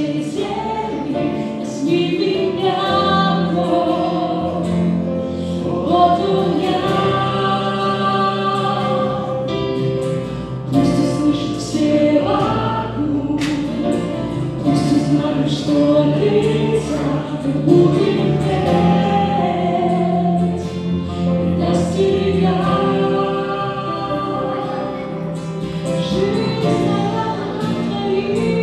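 Church worship band singing a song live, men's and women's voices together over acoustic guitar, electric guitar and keyboard.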